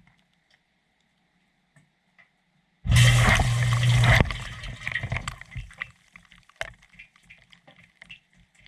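Water gushing inside a dishwasher tub for over a second, with a low hum under it, then trailing off into splashes and drips. A few faint taps come before it.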